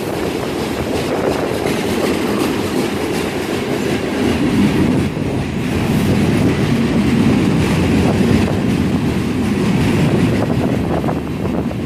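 CSX freight train of open-top gondola cars rolling past close by: a steady rumble of steel wheels on the rails with a clickety-clack of wheels over the track.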